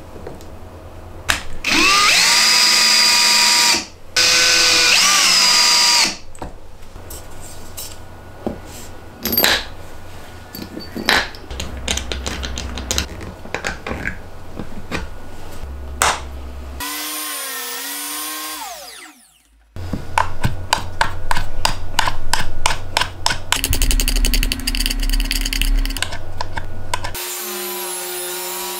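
Cordless drill driving screws in two runs of about two seconds each, its motor rising in pitch as it speeds up, followed by scattered clicks and knocks and further bursts of power-tool noise. Near the end a table saw runs steadily while a sled carries a plywood sheet through the blade.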